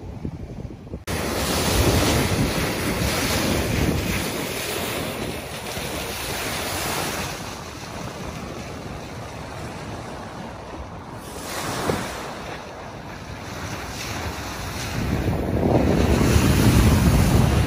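Wind buffeting the microphone over the rush of sea water past the hull of a motor yacht under way on calm sea. It starts abruptly about a second in and swells again near the end.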